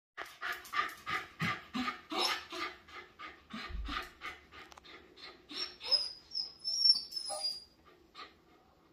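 Miniature Schnauzer panting fast and eagerly, about four breaths a second, while waiting by the door for its owner. Partway through, a high, wavering whine rises over the panting; the panting then fades near the end.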